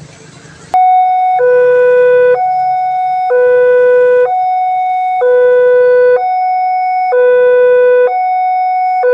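Railway level-crossing warning alarm switching on abruptly about a second in and sounding a loud electronic two-tone signal, alternating a higher and a lower tone about once a second. It signals that a train is approaching and the crossing barrier is closing.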